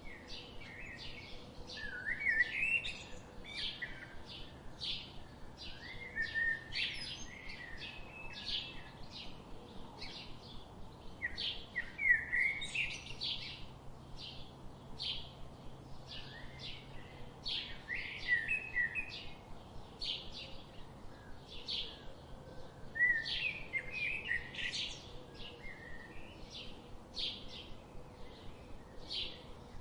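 Budgerigars chirping and warbling: a steady stream of short high chirps, about two or three a second, broken every five or six seconds by a burst of warbling chatter.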